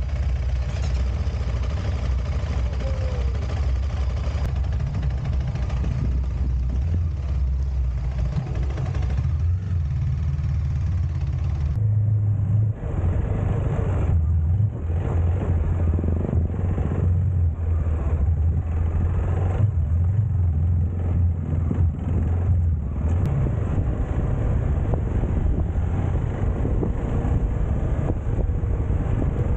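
Motorcycle engine running steadily under way, its low drone stepping up and down with the throttle, with wind rushing over the microphone.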